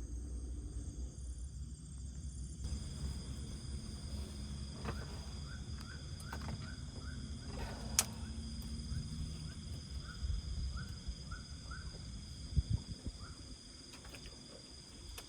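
Night-time chorus of insects such as crickets, a steady high-pitched trilling with several layered tones. From about five seconds in, a series of short chirps from another animal sounds over it, with a single sharp click near the middle and a low rumble underneath.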